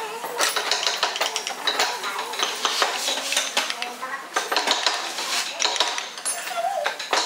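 Small metal hammer tapping a thin steel carving chisel into a wooden figure: a quick, uneven run of light metallic taps.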